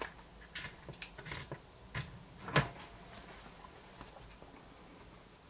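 Light clicks and taps of a small model truck chassis and a tiny screw being handled in the fingers, with a few sharper knocks, the loudest about two and a half seconds in, then quieter.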